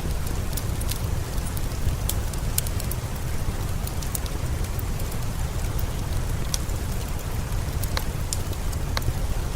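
Steady rain with a low rumble underneath, mixed with the scattered sharp pops of a fireplace crackling.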